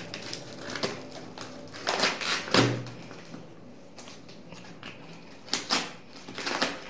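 Scissors snipping and rustling at the taped end of a paper-wrapped courier parcel, a run of short clicks and crackles, with one louder knock about two and a half seconds in.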